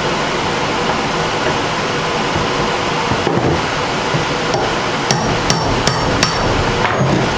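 A hammer strikes a steel punch held against the pressed-in petcock fitting of a plastic ATV fuel tank, driving the fitting out. A few light taps are followed, past the halfway point, by four sharp ringing blows about 0.4 s apart, over a steady background hum.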